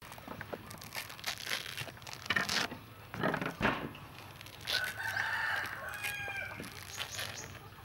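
A rooster crowing once about five seconds in, a call lasting about a second and a half. Before it come several short tearing and crunching sounds as pomelo pith is pulled apart by hand.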